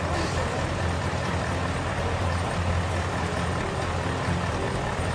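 Neoplan Centroliner double-decker bus's diesel engine running steadily at low revs while manoeuvring, a low hum with a steady hiss over it.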